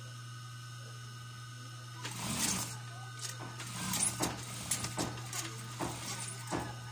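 Motor of a high-speed industrial sewing machine humming steadily, joined from about two seconds in by irregular sharp clicks and short bursts of machine noise.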